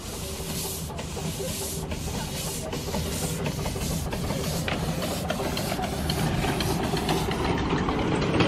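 7¼-inch gauge miniature steam locomotive chuffing as it approaches and passes, its exhaust beats quickening from about one a second to about two a second. It grows steadily louder, with the rumble of the wheels on the track building near the end.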